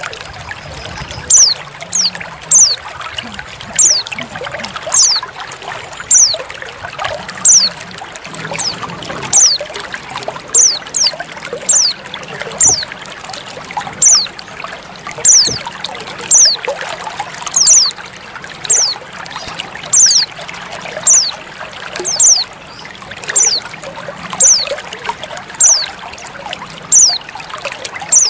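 Trickling water running steadily under a female white-eye (pleci) calling: a short, high note that falls in pitch, repeated about once a second and louder than the water.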